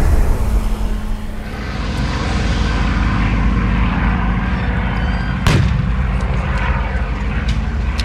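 The rumble of a staged battlefield explosion dies away at the start, leaving the steady running of military vehicle engines. A single sharp bang comes about five and a half seconds in, and a few faint cracks of blank gunfire near the end.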